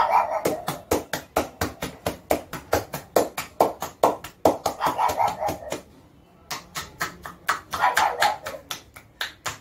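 Open hands patting a dog's back in quick, even slaps, about four or five a second, with a short pause just past halfway before the patting resumes.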